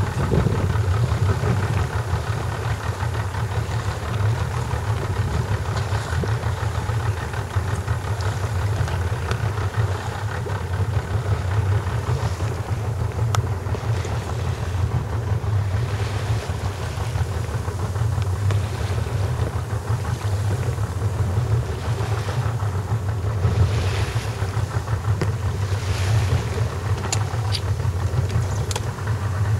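A small boat's engine running steadily as the boat moves over choppy sea, with water rushing past. Short splashes of water come now and then in the second half.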